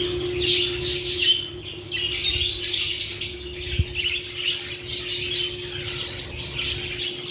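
Lovebirds calling in shrill, rapid chirps and squawks that come in clusters throughout, over a steady low hum.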